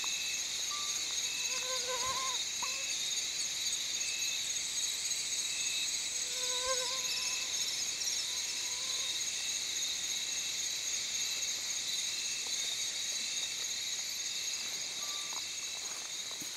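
Insect chorus: a steady, high-pitched buzzing, with a short chirp repeating about once a second and two brief lower calls. Fades out near the end.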